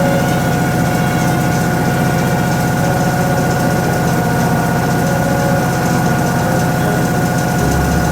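Top-loading washing machine running, a steady motor hum with a constant whine over it.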